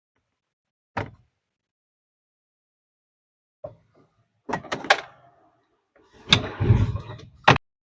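Irregular knocks and clatter of parts being handled: a single sharp knock about a second in, a quick cluster of knocks a little past the middle, then a longer rattling scrape that ends in a sharp knock near the end.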